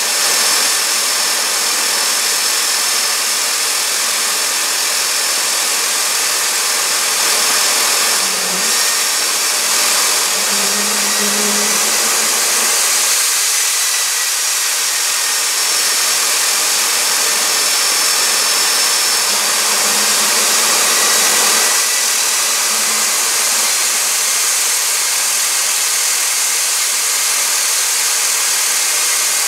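Fairchild J44 turbojet engine running steadily on a test stand: a loud, even rush of air and exhaust with a high turbine whine, its pitch shifting slightly about midway.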